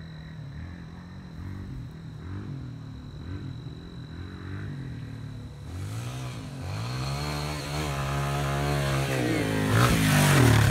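Dirt bike engine running faintly at first, then growing louder from about halfway, its pitch dropping and climbing as the throttle is worked. It is loudest near the end as the bike comes close.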